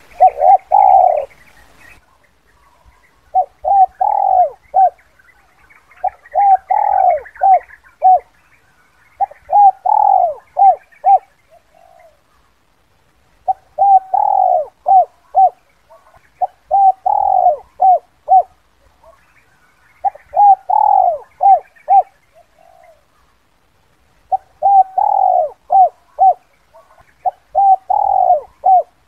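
Spotted dove (Spilopelia chinensis) calling, the 'kuk 2' type of coo used as a trapping lure. It repeats a phrase about every three seconds: short clipped coos, one longer, louder coo, then more short coos. Faint chirps of other birds sound between the phrases.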